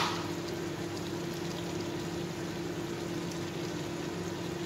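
Chicken simmering in soy and fish sauce in a wok, the sauce bubbling and hissing steadily as it reduces, over a steady low hum. A single sharp click comes right at the start.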